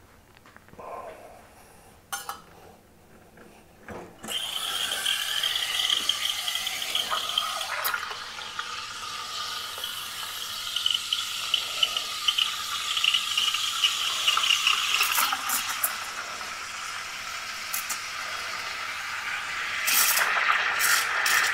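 Espresso machine steam wand steaming milk in a pitcher: a steady hiss with a high whistle in it, starting suddenly about four seconds in after a few light clicks.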